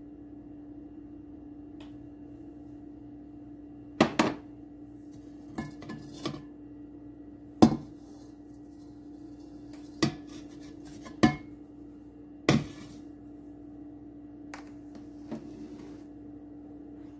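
Sharp metal clinks and knocks of cookware around a stainless steel pan, about nine of them at irregular intervals, over a steady low hum.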